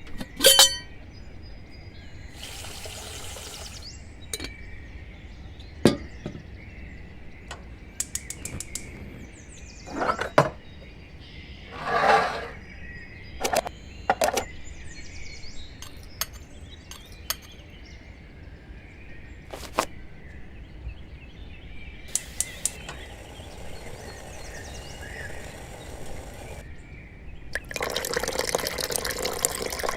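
A series of separate sound effects: sharp clicks and knocks, several short bursts of noise, and faint chirps. Near the end, water starts running steadily.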